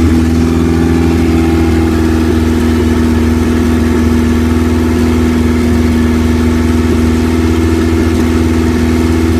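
Honda B20Z2 2.0-litre four-cylinder engine, turbocharged and freshly swapped into a Civic, idling steadily.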